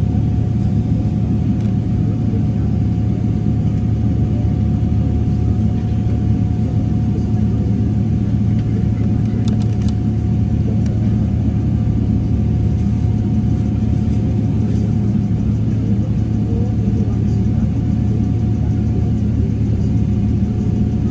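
Cabin noise of a Boeing 777-300ER's GE90 engines at low power while the aircraft moves on the ground: a steady low rumble with a steady whine above it, and a few faint clicks about ten seconds in.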